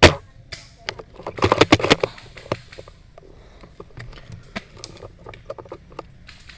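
A single sharp, loud crack, then a quick flurry of clicks and rustling about a second and a half in, with scattered lighter clicks after.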